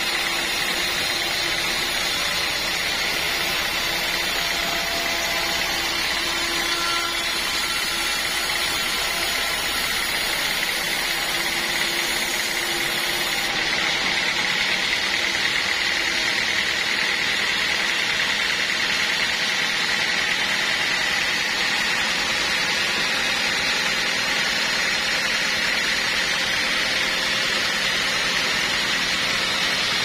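Vertical band sawmill running, its blade sawing through teak in a steady, even noise. About halfway through, the highest hiss drops away.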